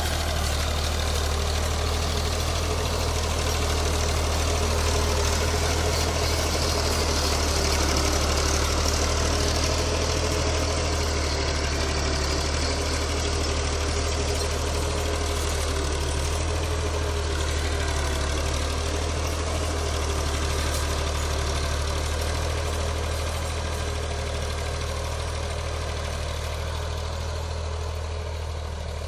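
Fiat 480 tractor's three-cylinder diesel engine running steadily under load while pulling a tine cultivator through soil. It grows slightly fainter near the end as the tractor draws away.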